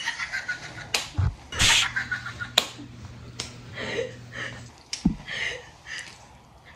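Open-mouthed chewing close to the microphone: wet lip-smacking and sharp mouth clicks, the kind of mouth noise heard in eating ASMR.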